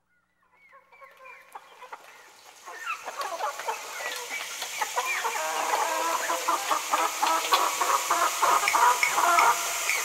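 A dense chorus of animal calls, many short chirping calls with scattered clicks, fading in from silence about a second in and growing louder and busier.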